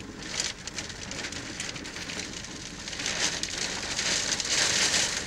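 Rain falling in a tornadic thunderstorm, a dense hiss of drops striking close by, growing louder about three seconds in.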